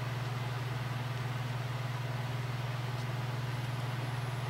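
A steady low hum that stays unchanged throughout, with a faint tick about three seconds in.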